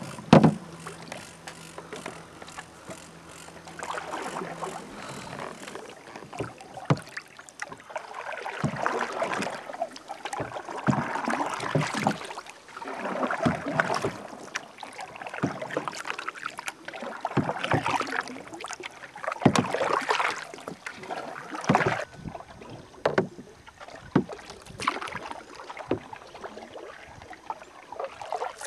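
Canoe paddling: paddle strokes through lake water come as swells of splashing and trickling every second or two, with sharp knocks now and then.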